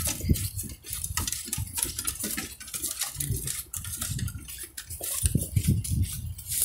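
Footsteps and dogs' claws on a wooden footbridge: irregular knocks and clicks on the planks as a man, four dogs and the person filming walk across.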